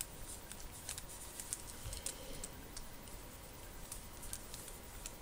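Faint, irregular light clicks and rustles of paper pages being handled and turned in a handmade journal.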